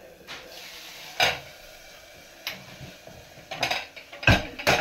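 Metal spoon clinking and scraping against a metal cooking pot as cooked rice is scooped, about five sharp clinks with the loudest near the end.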